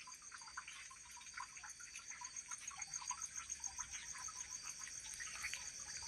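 Crickets chirping at night in a steady, fast-pulsing high chorus, with scattered faint drips of water after rain.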